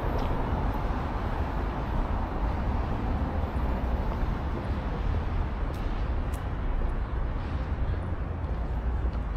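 City street traffic noise: a steady rumble of passing cars and other vehicles.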